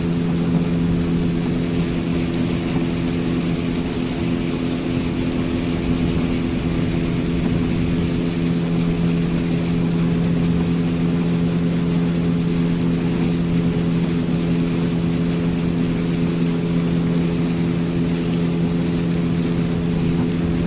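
Motorboat engine running at a steady cruising speed, heard from aboard the boat, a constant hum under a steady hiss.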